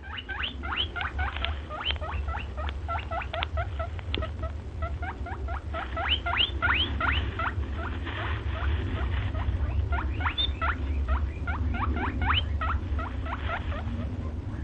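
A small animal squeaking in quick rising chirps, several a second, over a steady low hum.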